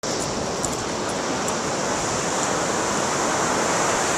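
Ocean surf breaking on a beach: a steady rushing noise.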